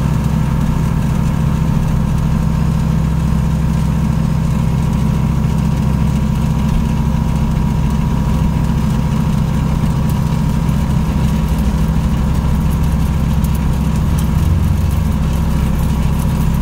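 Single-engine light aircraft's engine and propeller at takeoff power, a steady loud drone heard inside the cabin through the takeoff.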